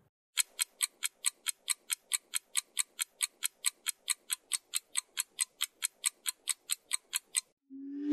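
Ticking-clock timer sound effect, even ticks at about four a second, counting down thinking time for a class discussion pause. It stops near the end and a short low tone rises into a bell-like ding.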